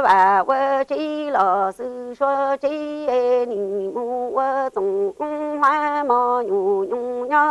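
A woman singing unaccompanied in a Hmong chanted sung-poetry style (kwv txhiaj). Her voice holds short, steady notes that step up and down among a few pitches, with brief breaks between them. The line ends about a second before the close.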